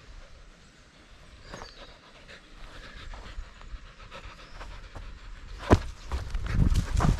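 Siberian husky panting close by, with soft rustling, then several heavy thuds in the last second and a half.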